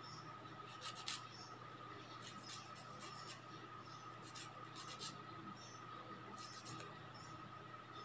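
A thin nail-care stick scraping at fingernails: short, dry scratches that come irregularly, a few a second at most, over a steady faint hum with a thin whine.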